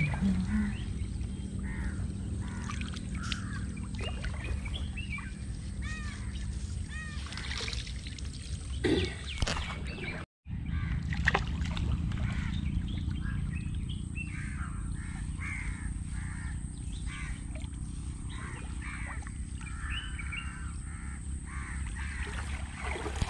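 Crows cawing again and again over a low, steady wash of water sloshing around wading legs in a shallow creek. A louder splash-like burst comes about nine seconds in, and the sound cuts out for a moment shortly after.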